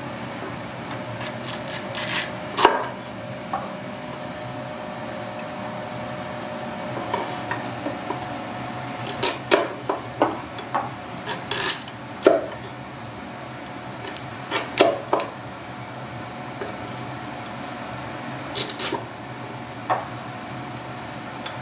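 Irregular sharp clicks and taps of a kitchen knife on a wooden cutting board and snow crab shell pieces as the legs are trimmed, in several short clusters, over a steady background hum.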